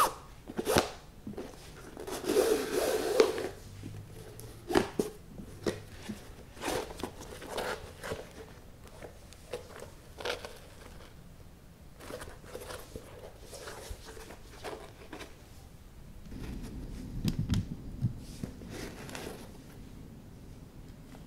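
Shoelaces being pulled out through the eyelets of a Nike Dunk High sneaker: a series of quick zipping swishes, one of them longer a couple of seconds in. Later comes lower rubbing as the shoe's leather and tongue are handled.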